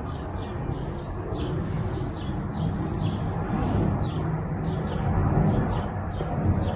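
Honda NC750X motorcycle's parallel-twin engine running with a steady low rumble, while the noise from the front sprocket area is being shown. Birds chirp in short repeated calls over it.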